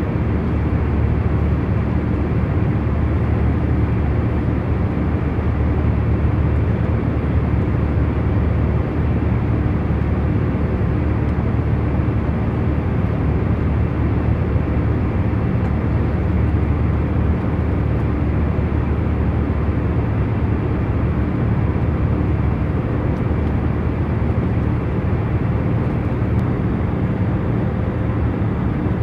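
Steady hum of an airliner's cabin in cruising flight: a deep rumble, with faint steady tones above it and no change throughout.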